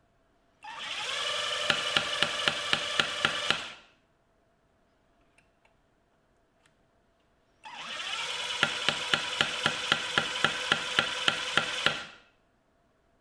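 National EZ6605 cordless impact driver run twice: each time the motor whines up in pitch, and about a second in its hammer mechanism starts knocking, with sharp regular blows about four or five a second, until the trigger is released.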